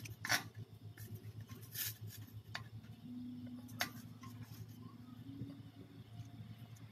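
Metal tongs knocking and scraping as a large chunk of firewood is set into the glowing embers of a biomass gasifier cookstove: a few light clicks spread out over about four seconds, over a low steady hum.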